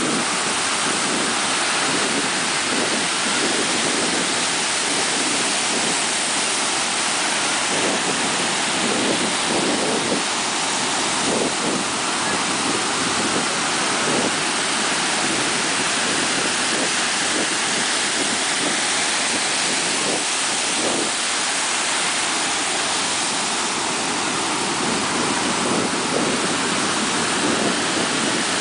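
Ocean surf breaking on a sandy beach: a steady, continuous rush of waves and whitewater.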